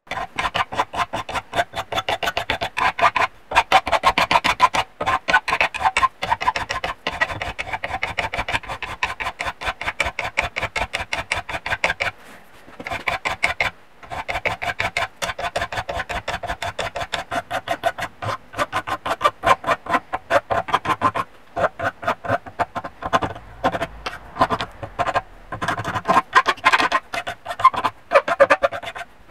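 Hand file rasping back and forth across the edge of a metal adapter plate clamped in a bench vise, in quick repeated strokes with a ringing metallic note and a few brief pauses.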